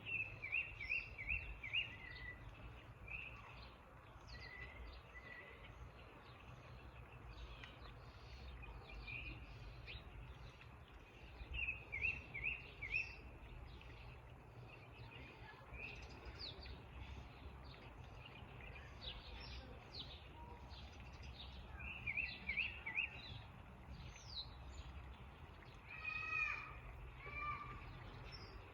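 Songbirds singing and calling: one bird repeats a short phrase of four or five quick downward-slurred whistles about every ten seconds, with scattered short high chips from other birds in between.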